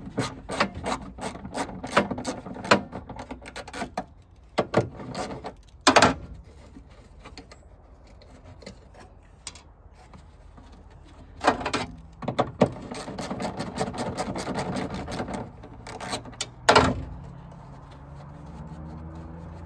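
Hand tool working on metal inside a 1957 Plymouth Sport Suburban's steel tailgate to free the window crank: a run of quick, even clicks for the first few seconds, then scattered knocks, a stretch of scraping, and a few loud metal clanks, the last near the end.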